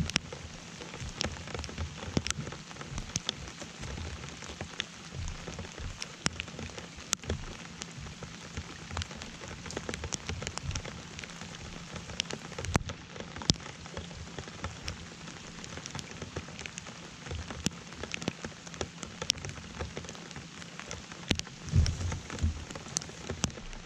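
Steady rain hitting the water and the boat, with many single drops striking sharply and irregularly close by. A few low thumps come near the end.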